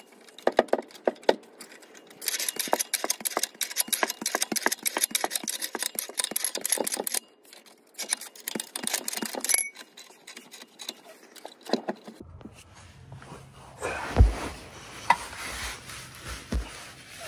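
Two long runs of rapid ratchet clicking while the transmission is raised on its jack. In the last few seconds come a low rumble and a few heavy metal knocks as the transmission is worked into place against the engine.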